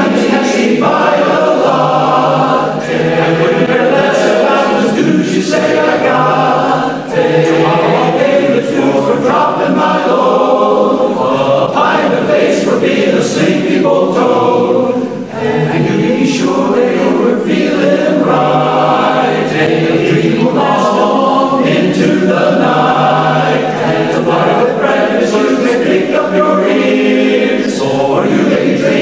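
All-male barbershop chorus singing a cappella in close harmony, with brief breaks between phrases.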